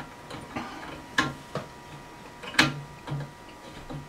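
A few sharp clicks and taps, the clearest about a second in and again past two and a half seconds, as a flexible toilet supply line's coupling nut is handled and threaded by hand onto the plastic fill valve shank under the tank.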